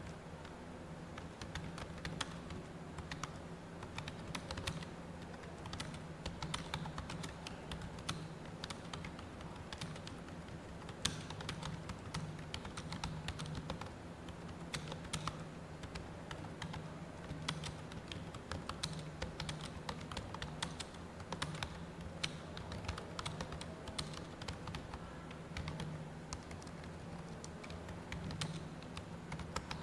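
Computer keyboard typing: a continuous, fast, irregular stream of keystrokes as a passage is typed out, over a steady low hum.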